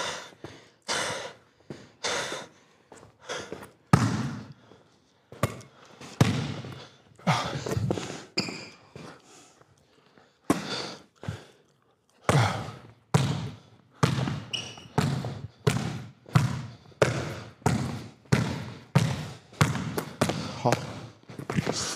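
Basketball being dribbled on a hard court floor. The bounces are scattered at first; from about halfway through they settle into a steady dribble of nearly two bounces a second.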